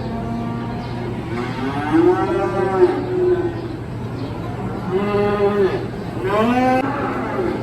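Cattle mooing at a stockyard: several long, rising-and-falling moos from more than one animal, over a steady low hum.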